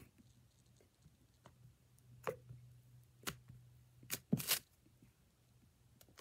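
Hand squishing and kneading a lump of stiff, clay-like slime, giving a handful of short squelching pops and clicks, the loudest about four and a half seconds in, over a faint steady low hum.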